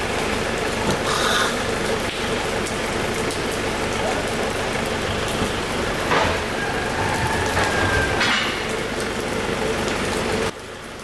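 Heavy rain pouring down in a steady dense hiss, with a few brief knocks mixed in. The level drops off sharply near the end.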